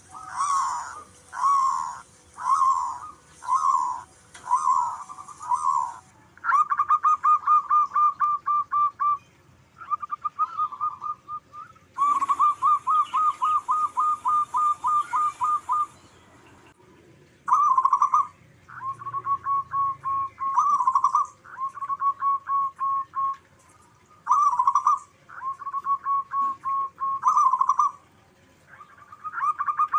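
Local zebra doves (perkutut) cooing. Phrases of rapid, stuttering coos follow one another with short pauses, like birds answering each other. The first few seconds hold separate notes about two a second, and the rest is runs of fast pulsed trills.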